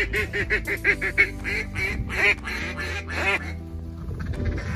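Duck call blown by a hunter: a fast run of quacks, then two louder single quacks about a second apart.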